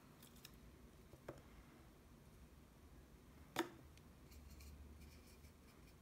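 Near silence: room tone with a few faint small clicks and one sharper click about three and a half seconds in.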